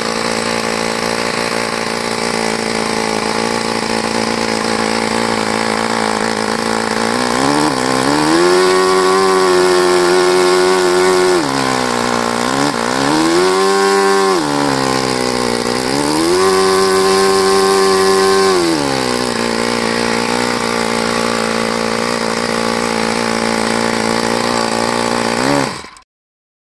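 Saito FA-30 four-stroke glow model airplane engine running smoothly with its propeller, at a steady idle. It is opened up to higher revs three times, two holds of a few seconds with a short blip between them, each time settling back to idle. The sound cuts off suddenly near the end.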